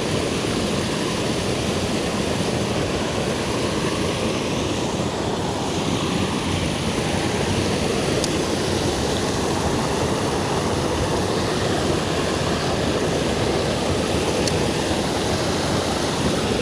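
Waterfall on a small mountain trout creek, the falling water rushing steadily and loudly.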